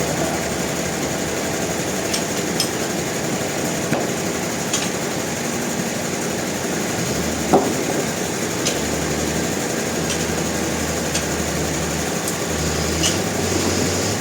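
Sawmill machinery running steadily, with scattered sharp knocks and clicks; one louder knock comes about halfway through.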